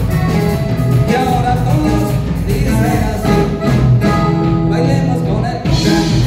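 Latin dance music with a singer, played loud over a PA sound system.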